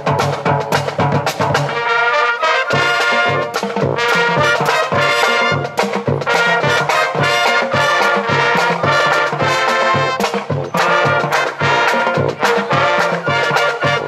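High school marching band playing a brass tune, trumpets and trombones over a steady drum beat.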